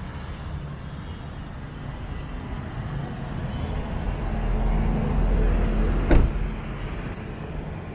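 Low rumbling handling noise on the recording device as the person climbing out of the car's back seat moves it about. The noise swells midway, with a single sharp knock about six seconds in.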